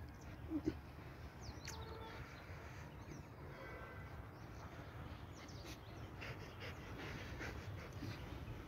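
Quiet outdoor ambience with a steady low rumble, a few faint bird chirps, and one short soft sound about half a second in.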